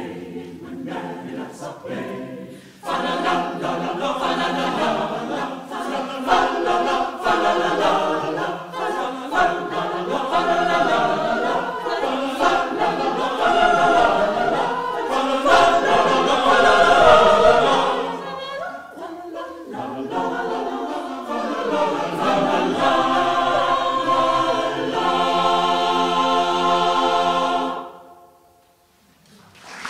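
Mixed choir singing in full chords, soft for the first few seconds and then loud, closing on a long held chord that cuts off about two seconds before the end. Applause breaks out at the very end.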